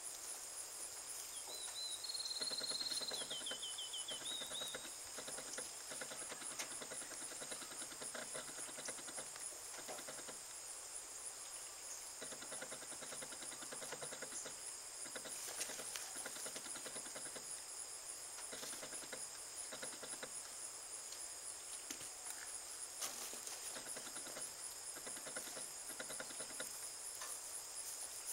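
Footsteps and rustling through dry cut grass as someone walks up to a target, over a steady high chirring of crickets and other insects, with a short high trill about two seconds in.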